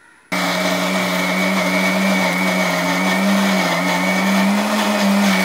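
Philips mixer grinder running, its steel jar blending sliced ripe nendran bananas into a thick paste without water. The motor starts abruptly just after the start and runs steadily with a low hum and a high whine above it.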